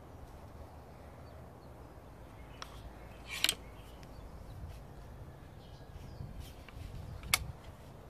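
Two sharp shots from a .177 Mercury Chili Edge air rifle, about four seconds apart. The first is slightly longer and more ragged, and a faint click comes about a second before it.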